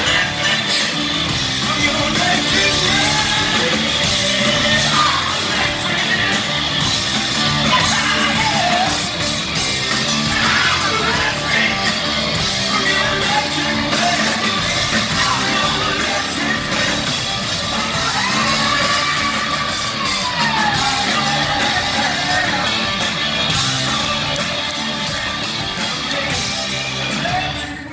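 Rock band playing live, with drums, bass and electric guitar under a singer's sung and yelled vocal lines that bend up and down in pitch.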